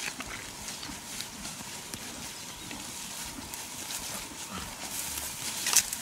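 A herd of horses and foals moving about close by in grass: soft hoof steps with scattered clicks and rustles, and one louder rustling sound near the end.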